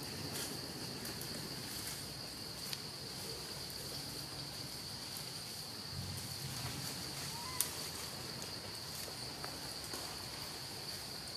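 Steady high-pitched drone of forest insects, with a few short clicks, the sharpest about two-thirds of the way in.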